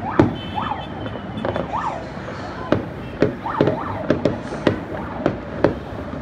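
Distant fireworks going off across the city: about a dozen irregular bangs and pops, some in quick succession.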